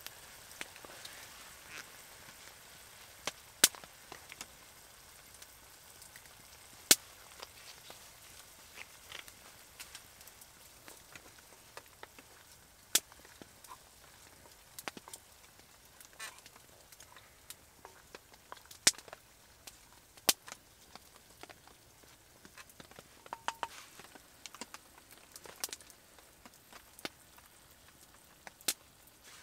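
Open spruce-wood fire crackling, with irregular sharp pops, a handful of them much louder than the rest, over a faint steady hiss.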